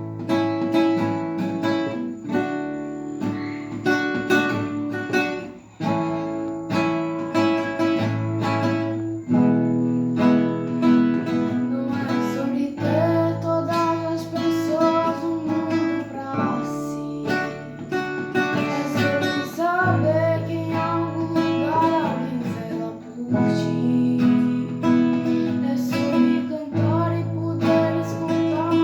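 Acoustic guitar played steadily, plucked and strummed chords.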